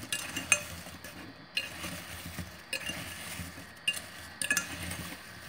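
A utensil clinking against a glass measuring bowl while sliced apples are tossed in cinnamon sugar: a few sharp clinks over soft stirring of the slices.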